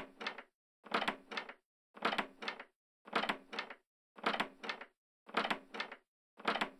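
A door opening, played again and again about once a second. Each time there is a louder first sound, then a shorter second one about a third of a second later, with silence between the repeats.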